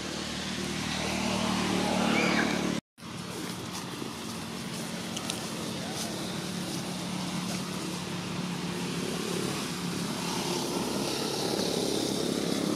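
A motor engine running steadily in the background, with an even hum that swells slightly near the end; the sound cuts out completely for a moment about three seconds in.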